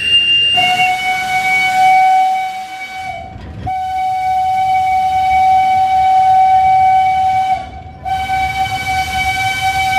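Steam whistle of steam locomotive D1410 sounding three long steady blasts, the first about two and a half seconds, the second about four, the third running on. Before the first blast, the end of a guard's shrill hand whistle stops under a second in.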